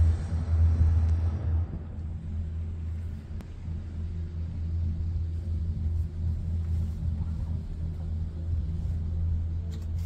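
Low steady rumble and hum inside a cable car gondola riding the line, louder for the first second and a half, then settling to a quieter, even drone.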